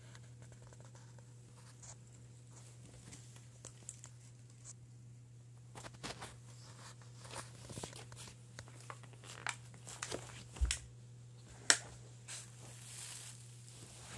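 Handling noise: scattered clicks, taps and rustles as a foam-and-Play-Doh cell model is picked up and turned on a paper sheet, getting busier about halfway, with a sharp click and a dull knock near the end. A steady low hum runs underneath.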